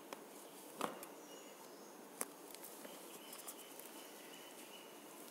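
Faint clicks and light scratching of an aari hook needle punching through taut fabric and drawing the thread up while working a chain stitch, with a sharper click about a second in.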